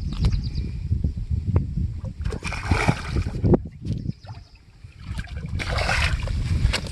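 Water splashing and sloshing with irregular knocks as a hooked fish is hauled in out of the river.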